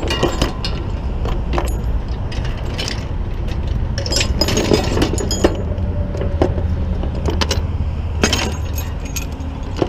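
Tow chain and hook clinking and rattling in short metallic clicks as they are moved and hooked onto a corner of an overturned car, over a steady low engine rumble.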